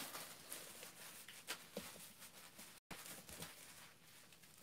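Faint rustling of cellophane wrap and light handling clicks of a cardboard box, with a brief break in the audio a little before the three-second mark.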